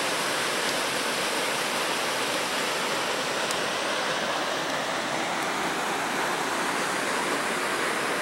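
Steady rush of the McCloud River's Lower Falls, a 15-foot cataract pouring over a basalt block into a deep pool.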